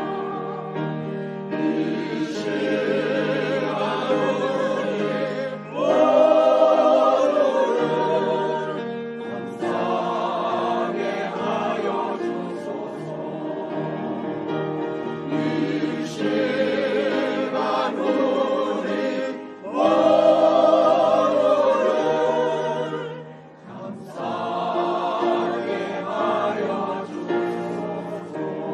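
Church choir singing a hymn anthem with accompaniment, the phrases swelling to loud peaks about six seconds in and again about twenty seconds in.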